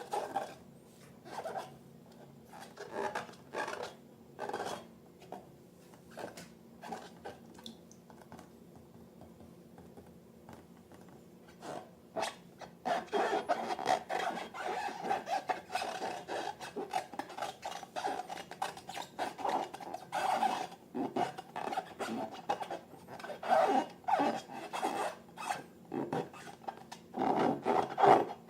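Rubbing and scraping of long rubber balloons and slime being worked by hand. The strokes are scattered and separate at first, then become dense and nearly continuous from about twelve seconds in.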